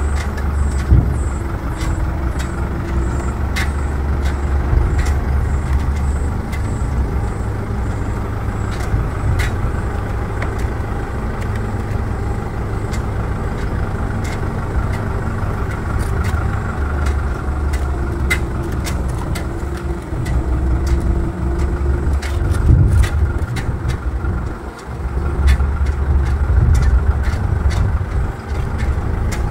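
A vehicle travelling along a rough road: a steady, loud low rumble of engine and road noise, with scattered sharp rattling clicks throughout. The rumble dips briefly about twenty-four seconds in, then picks up again.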